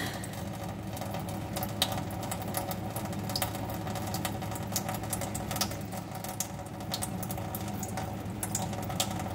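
Small scattered splashes and ticks of water as a young green-cheeked conure bathes, over a steady low hum.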